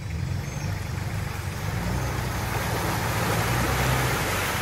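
Off-road 4x4's engine running as it crawls through a muddy, waterlogged track, growing louder as the vehicle comes close.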